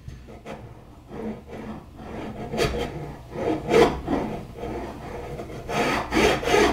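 A metal socket worked back and forth over creased wire mesh to flatten it out: a run of raspy scraping strokes, louder near the end.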